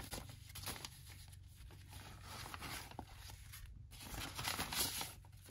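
Brown kraft-paper mailer envelope being torn open by hand: soft paper rustling and tearing, louder near the end.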